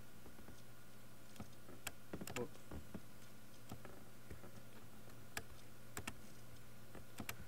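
Sparse single clicks from a computer mouse and keyboard, a dozen or so spread unevenly, over a steady low electrical hum.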